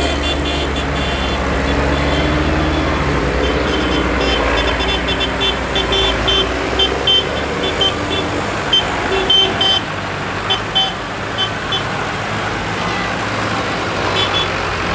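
Tractor engines running as tractors drive past, a close one loud until it fades away about halfway through, with short high sounds coming and going over the engine noise.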